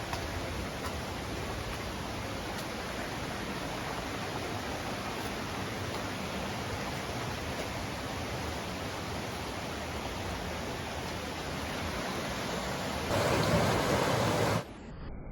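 Rushing water of a waterfall, a steady even rush that swells louder for about a second and a half near the end, then cuts off suddenly.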